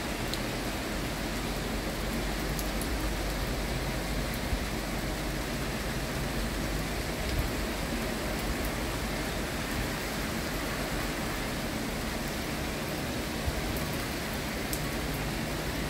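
Steady rain falling: an even hiss with a few faint ticks of drops.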